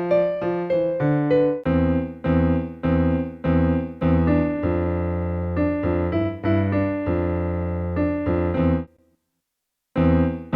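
Electronic keyboard played with both hands: a plain melody over low bass notes and chords at an even, unhurried pace. It stops just under nine seconds in, and after a pause of about a second a new phrase starts.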